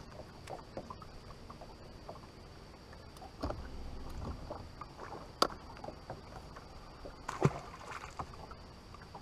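Small knocks and handling noises on a bass boat deck, with a dull low thump about three and a half seconds in and a sharp click a couple of seconds later. Near the end a small bass is tossed back and splashes into the water, the loudest sound.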